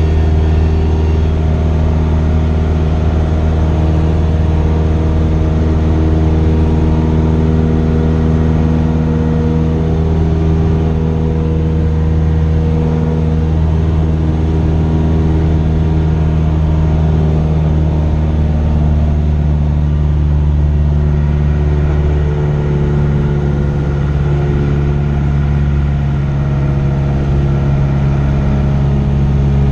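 Cabin drone of the Cessna 172S's four-cylinder Lycoming engine and propeller running steadily in flight, its note shifting about three-quarters of the way through.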